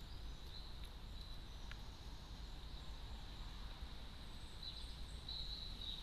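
Low outdoor rumble with short, high chirps of small birds about five seconds in. There are two faint taps of a carrion crow's beak pecking food from a feeder tray early on.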